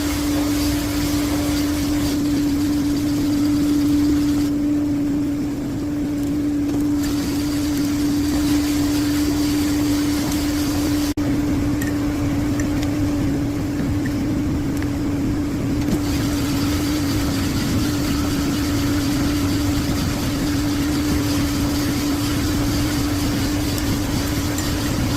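Steady machine hum holding one constant pitch over a low, even noise, with a momentary dropout about eleven seconds in.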